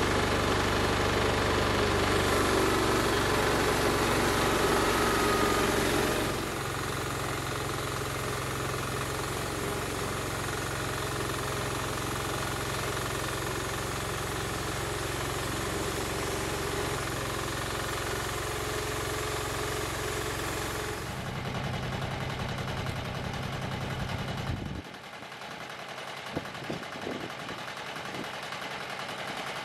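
Engine of a homemade bandsaw mill running, loudest for the first six seconds as the blade finishes a cut through the log, then steady with the blade out of the wood. About 25 seconds in it drops to a quieter run, and a few sharp metal knocks follow as the log is levered over with a bar.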